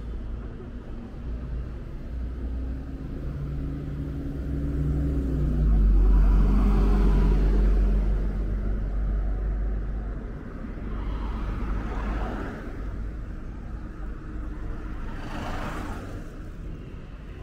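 Road traffic on a city street: motor vehicle engines running, with one engine's pitch dropping and then running at its loudest about a third of the way in. Two more vehicles pass later, each rising and fading.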